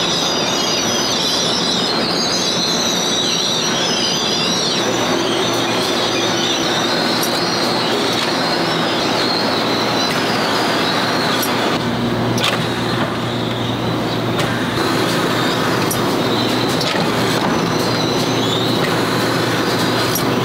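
Steady, loud factory machinery noise with a high squealing band, from a mesh-belt conveyor carrying coated aluminium frying pans through a curing oven. Partway through, sharp clicks come about every second and a half over a low steady hum, from a pad-printing machine pressing the pattern onto a pan's non-stick interior.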